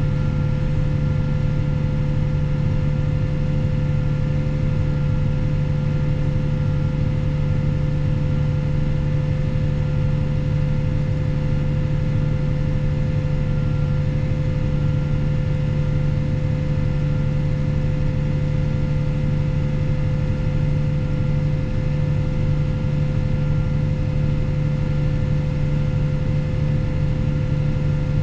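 Fendt 716 Vario tractor's six-cylinder diesel engine running at a steady, unchanging speed, a constant drone with a fixed higher whine over it.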